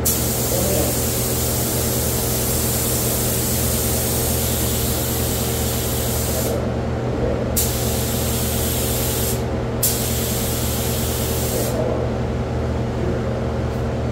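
Compressed-air spray gun hissing as it sprays automotive primer, in trigger pulls: a long burst that stops about six and a half seconds in, a brief one about a second later, and another of about two seconds that ends near twelve seconds. A steady low hum runs underneath.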